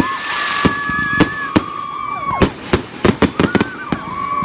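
Fireworks going off: a rapid series of sharp bangs and crackles mixed with long whistling tones, each held for a second or more before falling in pitch as it dies out. A new whistle starts near the end.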